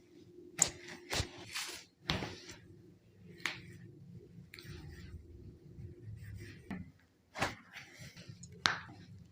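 Hands-on chiropractic spinal manipulation: a handful of short, sharp cracks and knocks at irregular spacing, the loudest about half a second in and near the end, with softer rustling between them.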